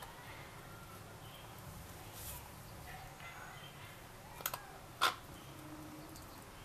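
A knife tapping against a cutting board while trimming a cured sardine fillet: a quick double tap, then a single sharper, louder tap about half a second later.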